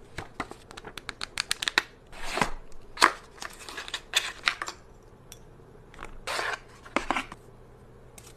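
Unboxing handling noise: a quick run of sharp clicks in the first two seconds, then several short rustling, sliding scrapes and a few more clicks, fading out near the end.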